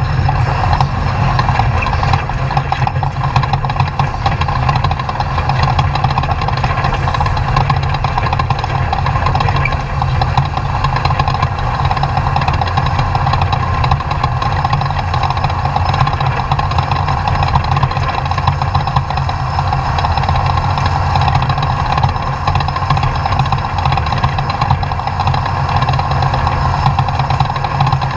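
Off-road race truck's engine running loud and steady at an even pitch, with no revving up or down.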